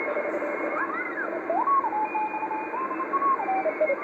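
Trio TS-820X shortwave transceiver receiving the 40 m band through its speaker: a steady hiss of band static with whistling tones, some steady and some gliding up and down in pitch, the longest rising about a second and a half in and holding for nearly two seconds.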